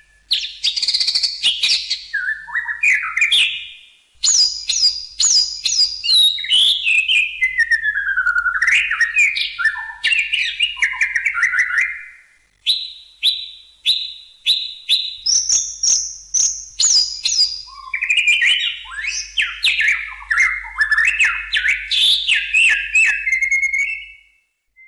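White-rumped shama (murai batu) singing a long, varied run of whistled phrases, fast repeated notes and trills, with short breaks about four and twelve seconds in.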